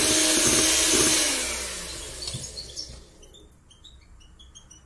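Electric hand mixer whisking egg-and-sugar batter in a stainless steel bowl as melted butter is poured in; about a second in it is switched off and its motor winds down with a falling whine. Faint small birds chirp near the end.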